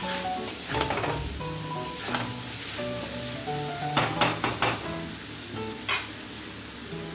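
Vegetables and masala with whisked curd sizzling in a steel kadai while a steel ladle stirs and scrapes the pan, with a quick run of metal clinks about four seconds in and another near the end, over background music.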